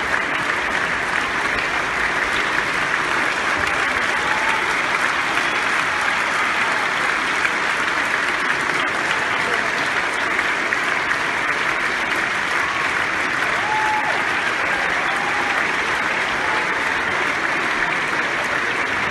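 Large theatre audience applauding steadily, a dense, even clapping that does not let up.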